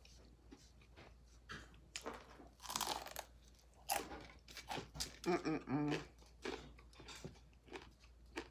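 Close-up crunching and chewing of crisp fried food, in irregular bites with the loudest crunches about two and four seconds in. A short pitched vocal sound comes about five seconds in.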